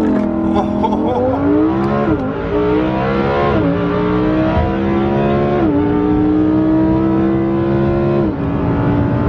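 Lamborghini supercar engine heard from inside the cabin under hard acceleration: its pitch climbs and drops sharply at three quick upshifts, about two, three and a half and five and a half seconds in, then holds steady at speed before the revs fall near the end.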